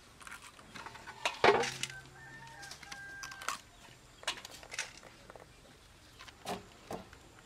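Scattered sharp clicks and taps of a small knife blade cracking water snail shells against a stone slab. A chicken calls for about two seconds, starting about a second and a half in.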